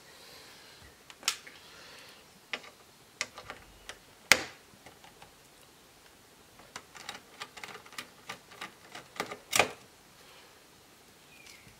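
Irregular clicks and taps of a screwdriver working on a laptop's display hinge screws and plastic housing. A sharp knock comes about four seconds in, then a quicker run of small clicks ends in another knock near the end.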